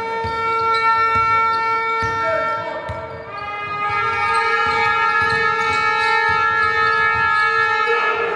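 A horn blown in two long, steady blasts, the first held until about three seconds in, the second slightly lower and held until near the end, over a basketball bouncing on a hardwood court.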